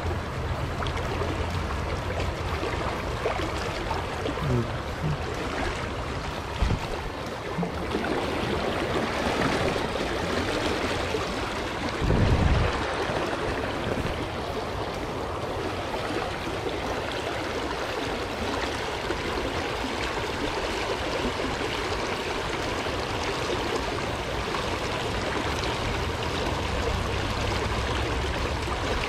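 River water rushing and flowing steadily. A few faint knocks fall in the first seconds, and a brief low thump about twelve seconds in is the loudest moment.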